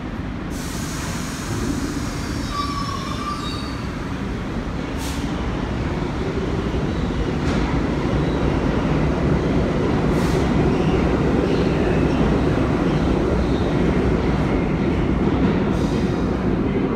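New York City subway train running through the station. Its rumble grows louder from about six seconds in and stays loud, with brief high wheel squeal a couple of seconds in and a few short hisses.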